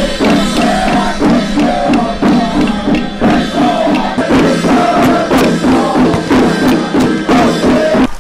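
Music: a melody over steady, closely spaced percussion strokes.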